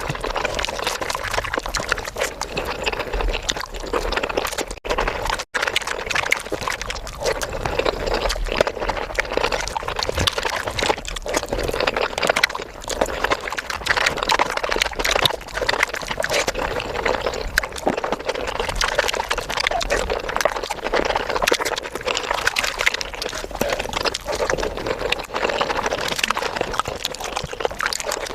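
Close-miked eating sounds of paneer butter masala played at five times speed: a dense, unbroken stream of rapid wet chewing and lip-smacking clicks.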